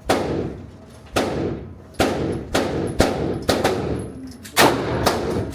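About ten gunshots at uneven spacing at an indoor shooting range, each crack followed by a reverberant tail.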